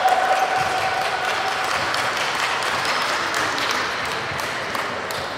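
Spectators applauding and cheering in a large, echoing gym. A held shout trails off just after the start, and the clapping slowly fades.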